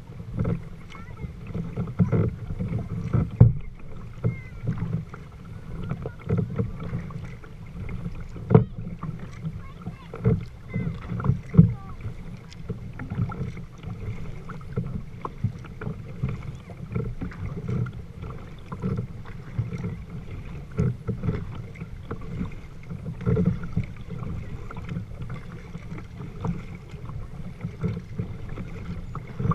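A kayak being paddled through calm water: water splashing and lapping against the hull, with irregular sharp knocks, loudest a few times.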